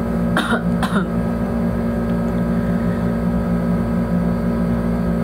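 A person coughs twice, two short bursts about half a second and one second in, over a steady low hum.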